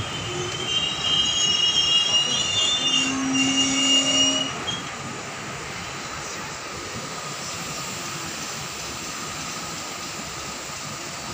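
Indian Railways passenger coach wheels squealing against the rails as the train rolls through the station. Several high, drawn-out squeals overlap for the first four or five seconds, then give way to a steady rolling noise.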